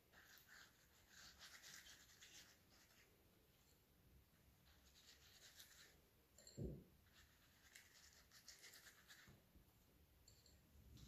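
Faint, soft scratchy strokes of a silicone pastry brush spreading oil over raw eggplant slices, in short runs, with one dull knock about two-thirds of the way through.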